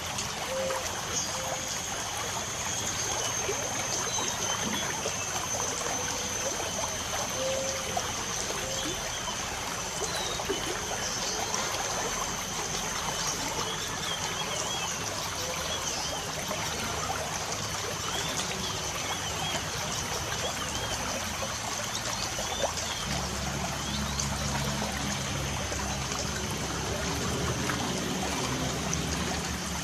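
Light rain falling as a steady wash of fine patter, with small birds chirping now and then over a steady high whine. A low hum comes in louder near the end.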